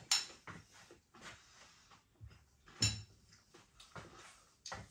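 Dishes and cutlery being handled: several short clicks and knocks, the loudest right at the start and a little under three seconds in, with fainter handling noise between.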